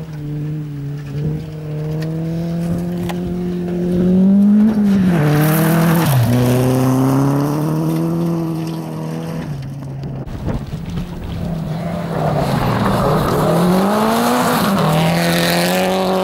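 Rally car engines at full throttle on a gravel stage: a small hatchback rally car revs up and drops pitch through a couple of gear changes as it passes and pulls away. After a cut about ten seconds in, a Subaru Impreza rally car's engine dips and then climbs again as it accelerates past.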